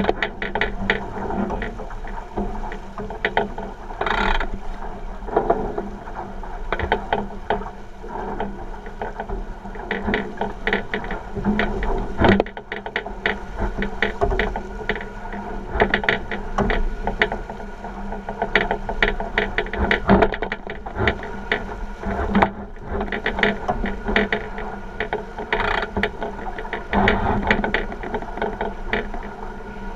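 A 49er skiff sailing at speed: dense, irregular clicking and rattling from its hull and fittings, over a steady rush of water and wind.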